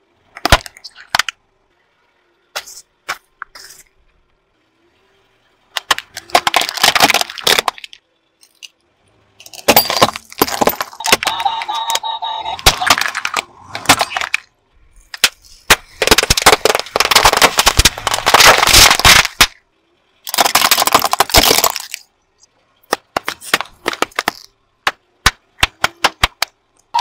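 Small plastic objects cracking, snapping and crunching as a car tyre rolls over and crushes them, in about eight separate bursts of loud crackling with short silences between.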